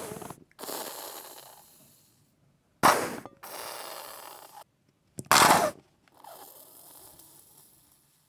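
Wet squirting sounds from a squeezed sauce bottle, used as diarrhea-fart sound effects. Three squirts come in turn, each a sharp, loud spurt that trails off into a sputtering, crackly splutter lasting one to two seconds.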